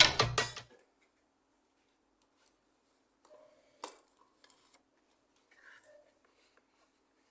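Background music cuts off under a second in, followed by near silence with a faint sharp click about four seconds in and a few fainter ticks.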